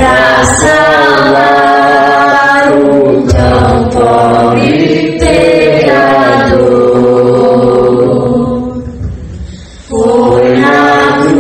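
Church congregation singing a hymn together in long held notes. A phrase fades out over about two seconds before the next phrase starts near the end.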